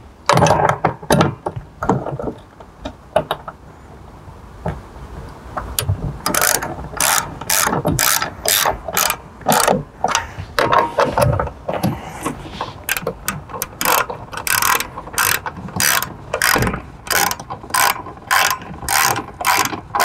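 Hand ratchet with a 7/16 socket clicking as it lightly tightens the bolts of a boat seat suspension's slider plates. There are a few scattered clicks at first, then steady ratcheting at about two strokes a second from around six seconds in.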